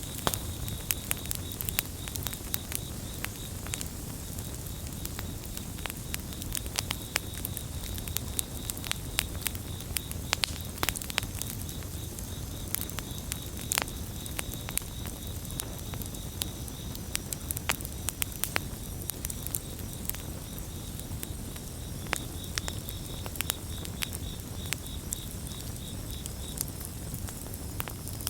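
Campfire burning with frequent sharp crackles and pops over a low, steady rumble of flames. Crickets chirp in a steady high trill behind it.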